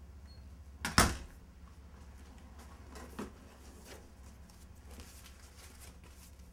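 Wall-mounted metal mailbox being handled: one sharp clack about a second in, then a few lighter knocks as a folder is pulled out of it.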